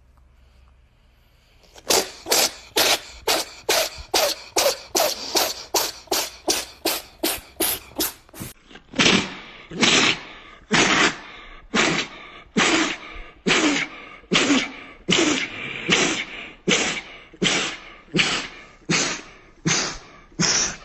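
Cat sneezing over and over in quick short bursts, about three a second. A second string of sneezes follows, slower at a little over one a second.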